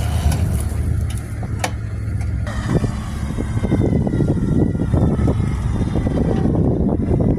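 A vehicle engine idling with a steady low rumble. About two and a half seconds in, the sound turns rougher and noisier.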